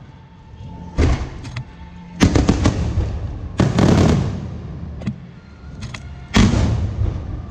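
Aerial fireworks bursting: four booms, about one, two, three and a half and six and a half seconds in, each fading away with a rolling echo. Quick crackling reports follow the second boom.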